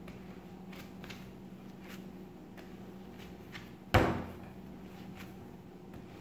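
Bread dough being kneaded by hand on a tabletop: soft, repeated pressing and slapping sounds, with one loud thump about four seconds in.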